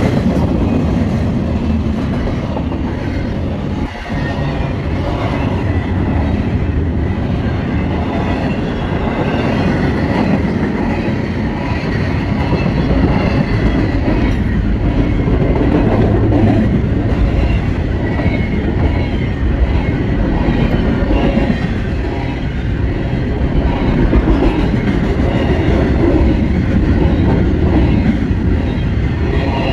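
Norfolk Southern freight train's cars rolling past close by: a loud, steady rumble of steel wheels on rail with clickety-clack over the rail joints and a faint wheel squeal.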